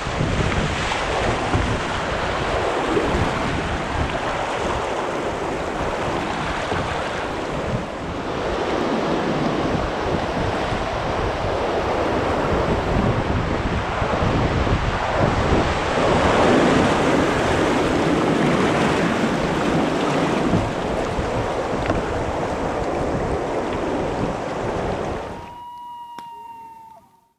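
Rushing whitewater churning around a canoe running a rapid, with wind buffeting the microphone. Near the end the water noise cuts off and a steady high tone sounds.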